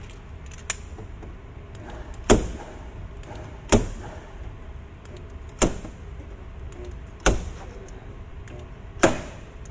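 Spot-weld dent puller's slide hammer knocking five times, about every one and a half to two seconds. Each knock is a sharp metallic clack with a short ring as it pulls a dent out of the car door's bare steel panel. A low steady hum runs underneath.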